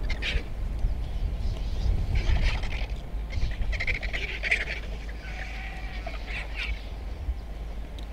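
A flock of vultures squabbling over a carcass, giving harsh hissing and cackling calls in several bouts.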